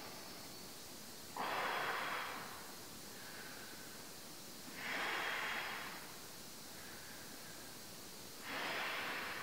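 A man breathing out hard three times, about every three and a half seconds, as he reaches the end of each seated torso rotation.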